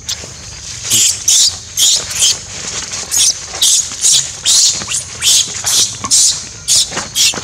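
Baby macaque screaming in distress while an older monkey grabs and drags it: a rapid string of short, shrill cries, about two to three a second, starting about a second in.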